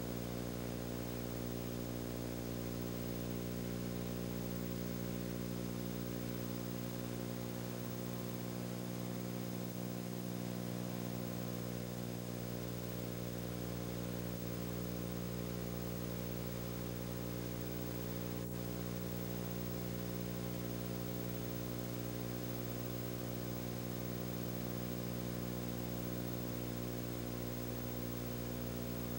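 Steady low hum with a stack of even overtones over a constant hiss, unchanging throughout, with a single faint tick about eighteen seconds in.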